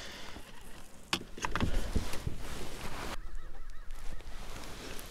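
Geese honking, with a few sharp clicks and loud low thumps about a second and a half in.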